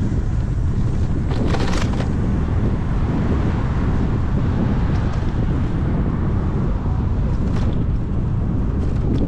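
Wind buffeting the microphone of a camera on a moving bicycle, a steady low rumble, with traffic noise mixed in. There is a brief hiss about two seconds in and another later on.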